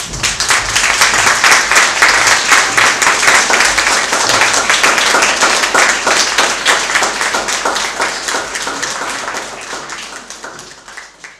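Audience applause, mostly children clapping: a dense, loud patter of many hands that starts abruptly and slowly dies away near the end.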